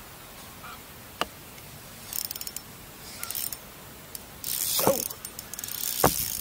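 Fishing reel's drag clicking in rapid bursts as a hooked fish pulls line off against a lightly set drag. A single sharp click about a second in, and a knock near the end.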